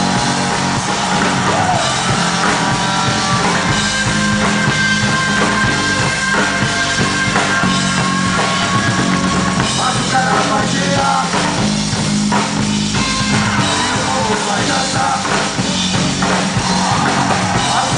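Live batucada band playing: dense samba drumming under sustained bass and melody instruments, loud and unbroken.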